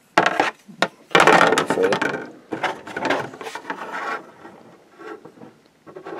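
Plastic model-kit sprues being handled: a sharp click just after the start, the loudest clattering rustle about a second in, then lighter rattling and tapping of plastic parts.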